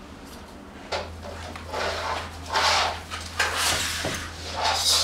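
Objects being handled on a wooden floor: a series of rustling, scraping bursts, with a low steady hum coming in about a second in.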